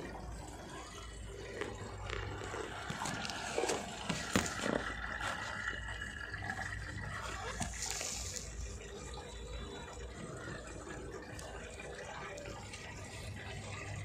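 Water running and splashing into the tub of a Godrej 6.2 kg top-load fully automatic washing machine onto wet clothes as it fills during the rinse cycle: a steady watery hiss with scattered small clicks.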